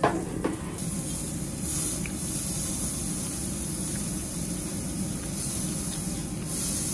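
Meat sizzling on a yakiniku tabletop grill, a steady hiss that swells and fades several times, over the even hum of the grill's smoke-extraction fan. Two light knocks at the start.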